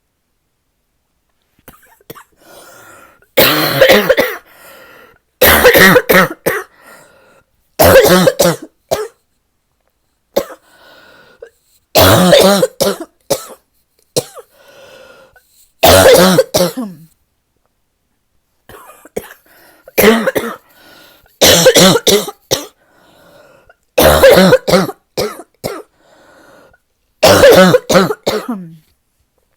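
A person's deep, barking cough, in about nine loud fits of several coughs each, with faint breaths drawn between them. It is a persistent chest cough with aching lungs that is showing no sign of getting better.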